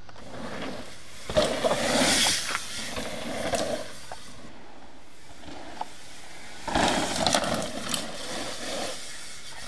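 Mountain bike tyres rolling and scraping over a loose dirt trail as a rider goes past, in two rushes: one about a second in, and another about seven seconds in.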